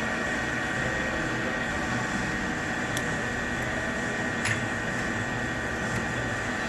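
Supermax LG1440 engine lathe running with its spindle at about 800 RPM: a steady mechanical hum with a thin high whine, and two light clicks around the middle.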